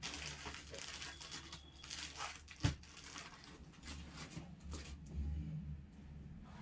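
Cloth rustling and crinkling as a printed cotton suit and its dupatta are lifted and handled, in irregular crackles with one sharper crinkle about two and a half seconds in; it dies down after about five seconds.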